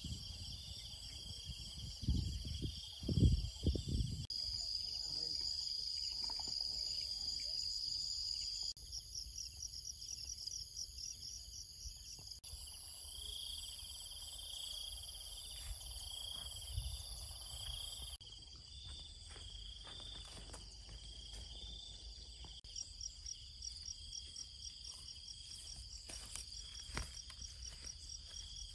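A chorus of insects chirring and trilling steadily, its pattern changing abruptly several times. A few low rumbles of wind on the microphone come about two to four seconds in.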